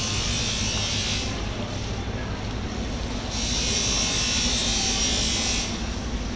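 Water spraying from a hose, a hissing rush that stops about a second in and returns for a couple of seconds midway, over a steady low mechanical hum.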